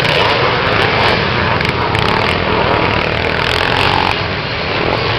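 A pack of motocross bikes racing, many dirt-bike engines running together in a steady, dense drone.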